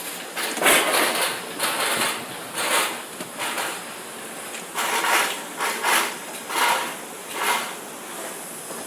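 Carrot bubble washing machine running: a steady hiss with repeated rushing surges about once a second.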